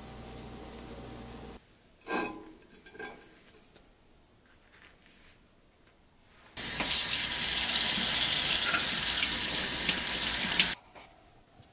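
French toast frying quietly in a nonstick pan, then two light clinks about two and three seconds in. Later a kitchen tap runs loud and steady over strawberries and blueberries in a colander in a stainless steel sink, cutting off shortly before the end.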